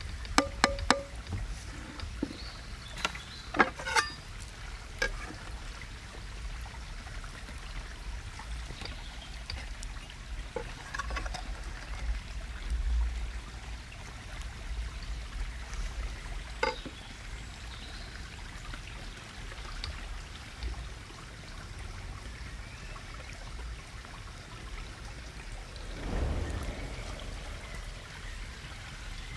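Steady outdoor background noise with a few sharp clicks and taps in the first five seconds.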